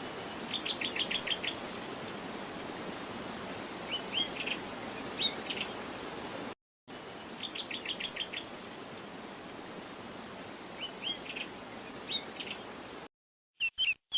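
Small birds chirping over a steady hiss: a quick run of about six notes, then scattered calls. After a brief dropout about halfway through, the same passage is heard again, and it cuts off near the end.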